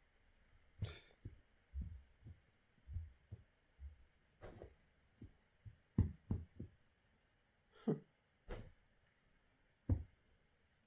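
Irregular soft thumps with a few sharper knocks, loudest about six and ten seconds in: animals playing and tussling on the floor.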